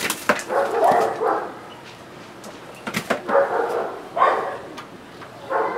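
A dog barking in several short bouts.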